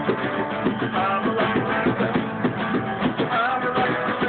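Acoustic guitar strumming chords in a steady rhythm, with hand-played bongo drums beating along.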